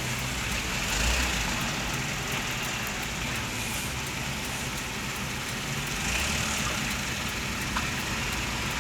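Motor vehicle running, a steady, even rush of noise with no clear engine note.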